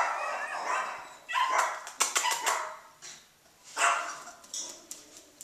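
Small puppy barking in about five short bursts.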